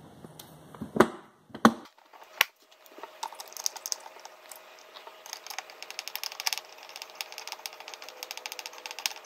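A few sharp knocks as the plastic bottom tray is fitted back onto a Samsung dishwasher, then a screwdriver driving its screw back in: a quick, even run of small clicks lasting several seconds.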